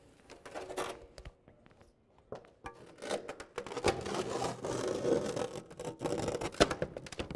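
Scraping, rubbing and clicking as a large carved ice sculpture is handled and slid into place on its display base. The handling noise grows busier and louder about three seconds in.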